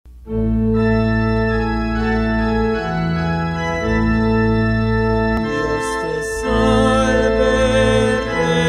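Organ playing slow sustained chords that change every one to three seconds; about two-thirds of the way in, a higher wavering melody with vibrato joins.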